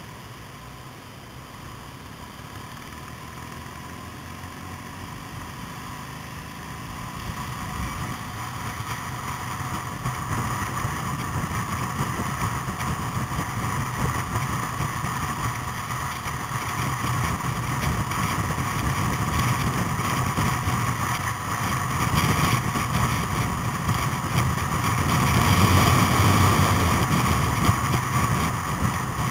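Vintage motorcycle engine running at road speed with wind rushing past, growing steadily louder and loudest near the end.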